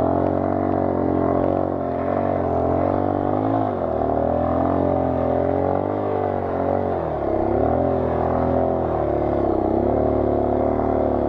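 Small motorcycle engine running hard as it bogs down in very soft sand, its pitch wavering and sagging twice as the bike loses speed, then dropping away at the end.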